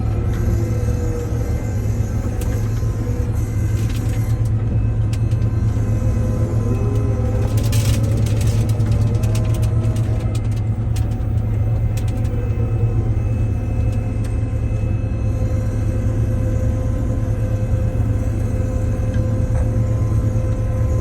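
A vehicle engine running with a steady low rumble, with a short run of sharp clicks about eight seconds in.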